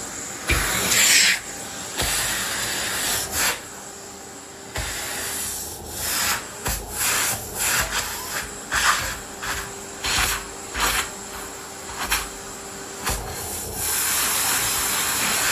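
Miele vacuum cleaner running while its nozzle is pushed and pulled over the floor: a steady suction hiss that surges and drops over and over, with the rubbing of the nozzle and short knocks as it is moved.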